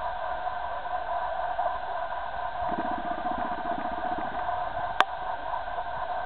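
A steady mechanical hum made of several held tones, like a fan or small motor, with a low pulsing sound through the middle and a single sharp click about five seconds in.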